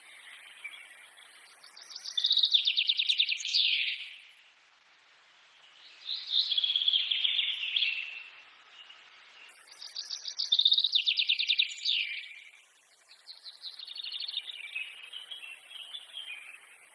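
A songbird singing four fast trilled phrases about four seconds apart, each a quick run of notes that drops in pitch at its end, over a faint background of forest ambience.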